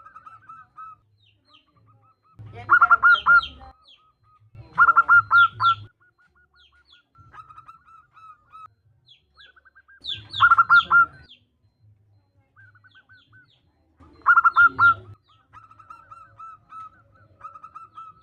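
Zebra dove (perkutut) calls, said to be a female calling to males: four loud bursts of rapid staccato cooing notes, with softer runs of coos and some short high chirps between.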